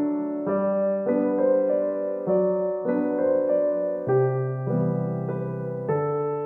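Background music: a keyboard plays held chords that change about every half second to a second.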